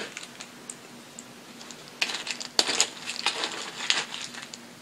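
A metal spoon stirring and scooping crunchy Kashi GoLean Crunch cereal clusters in a small cereal cup: a few light ticks at first, then a run of scraping and clinking strokes from about halfway through.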